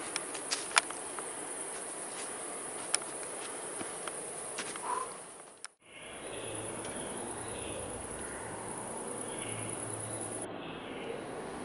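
Night forest ambience: insects chirring steadily, high-pitched, with a few sharp clicks in the first few seconds. The sound drops out briefly about halfway through, then the steady chirring resumes with faint distant sounds underneath.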